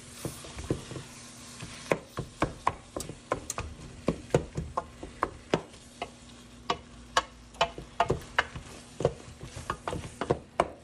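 Wooden spoon stirring ground beef and onion browning in a metal pot, knocking and scraping against the pot's sides and bottom in irregular sharp clicks, about three a second.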